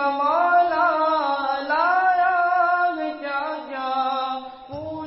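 A single voice singing a naat, an Urdu devotional song, in long, wavering held notes with no instruments, with a short break near the end.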